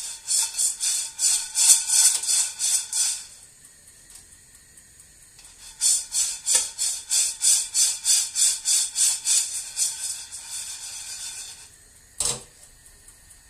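Coffee beans rattling and sliding in a ceramic-coated frying pan as it is shaken back and forth, about three shakes a second, during a home stovetop roast while the beans are still early in the roast, before first crack. Two spells of shaking with a pause between, then one last short toss near the end.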